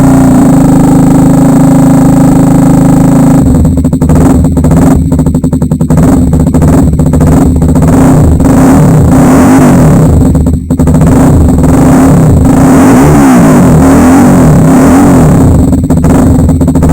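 Kawasaki Ninja 250 Mono single-cylinder engine running loud through an Akrapovic aftermarket exhaust. It idles steadily for the first few seconds, then is revved repeatedly, its pitch rising and falling.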